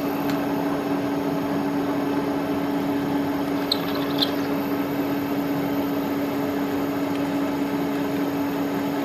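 Milling machine running steadily, its 4 mm end mill cutting down into a broken stud, with a constant hum. A few faint high squeaks come about four seconds in.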